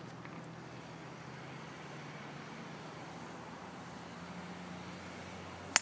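Steady low rumble of distant road traffic, then near the end one sharp crack of a golf club striking the ball off the tee in a good hit.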